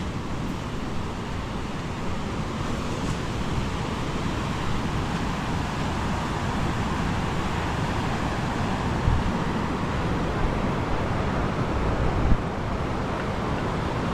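Ocean waves washing onto a beach, with wind blowing across the microphone; a couple of low gusts rumble on the microphone late on.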